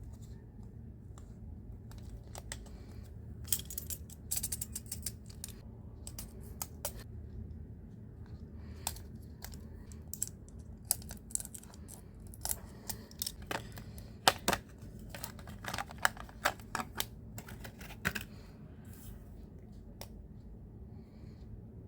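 Packaging being handled and opened by hand: scattered sharp clicks, taps and crinkles in clusters, over a low steady hum.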